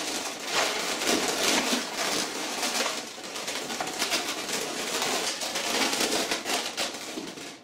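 Latex modelling balloons (260 size) squeaking and rubbing under the hands as the eye balloons are pushed inward and the sculpture is handled. The rubbing stops suddenly near the end.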